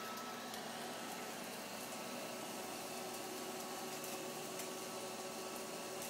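iRobot Roomba robot vacuum running on carpet: a steady whirring hum with a few faint ticks.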